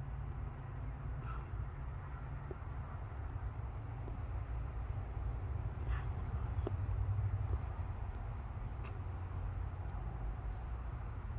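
Insects trilling steadily at one high pitch, over a low, steady rumble.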